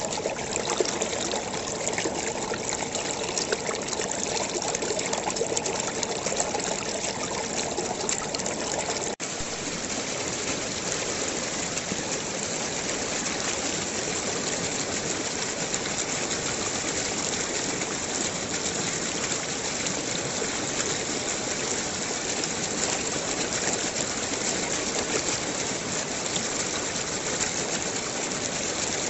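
Steady rush of running water, like a stream, with a momentary break about nine seconds in.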